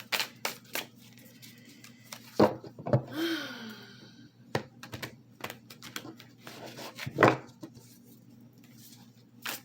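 A deck of tarot cards being handled and shuffled: scattered card clicks and slaps, with a few louder knocks against the table, the loudest about two and a half and seven seconds in.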